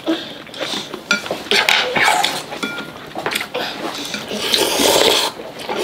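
Chopsticks clicking and clinking against glass bowls, with noisy slurping of noodle soup, the loudest slurp about four and a half seconds in.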